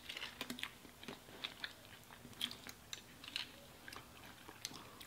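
People chewing mouthfuls of burger, close to the microphone: soft, irregular wet mouth clicks and small crunches.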